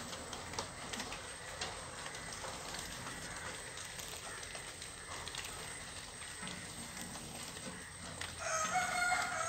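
Faint background noise, then one long, held bird call that starts near the end.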